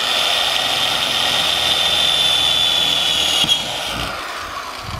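Corded electric drill running at full speed, its bit drilling a screw hole through a roof vent's metal flange into the van's sheet-metal roof. The whine is steady with a high tone, then eases off about three and a half seconds in and winds down near the end.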